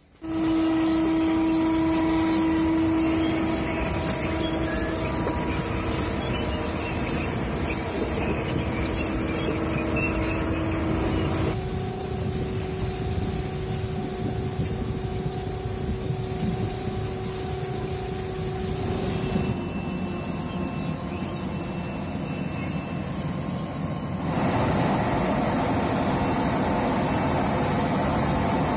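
Onion-handling machinery running: a receiving hopper, conveyor belts and a hall filler, giving a steady mechanical din with a held whine. The sound changes abruptly three times.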